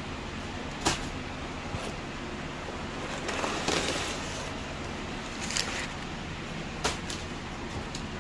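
Cardboard shipping box being handled and opened by hand: a few sharp taps and clicks of the cardboard, and a longer scraping rustle about three to four seconds in, over a steady background hum.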